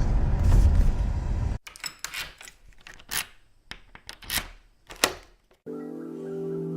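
A loud low rumble cuts off abruptly about a second and a half in. A few seconds of scattered sharp clicks and taps follow, and near the end music with sustained, bell-like tones begins.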